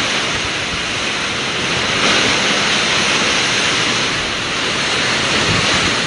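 Typhoon wind driving heavy rain: a loud, steady rush that swells and eases slightly in gusts.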